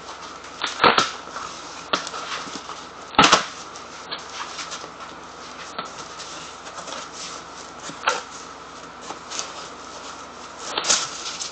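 A big cardboard shipping box being opened and handled: irregular rustling and scraping broken by sharp knocks. The loudest knocks come about a second in and again about three seconds in, with smaller ones later.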